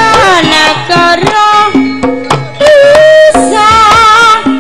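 Javanese karawitan gamelan music: held notes from tuned metal percussion and drum strokes, with a singer's wavering, ornamented vocal line over them.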